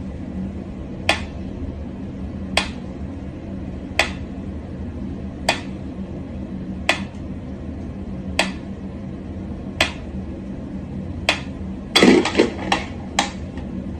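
Mechanical pendulum metronome ticking slowly and evenly, one sharp tick about every second and a half. About twelve seconds in, a louder flurry of scuffles and knocks as a cat leaps up.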